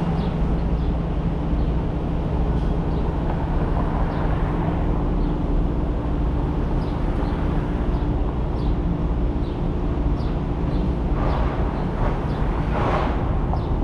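A car driving: steady road and tyre noise with a low, even engine hum. Two short swells of noise come near the end.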